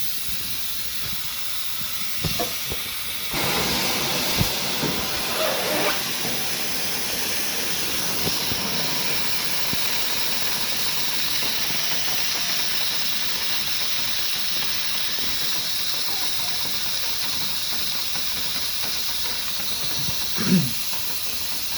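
Compressed air hissing from a tire changer's pneumatic bead breaker as it presses against the tire bead, with a louder rush of air a few seconds in and a few knocks. A brief louder thump near the end.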